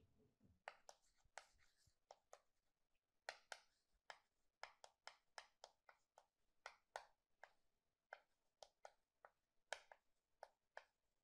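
Faint, irregular taps and short scrapes of chalk on a chalkboard as characters are written stroke by stroke.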